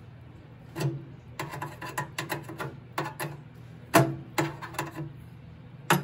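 A steel wire hook scraping and prying at the stamped sheet-steel panel of a microwave, breaking the tabs that hold the turntable motor's access cover. It makes a run of irregular metal clicks and scrapes, the sharpest about four seconds in.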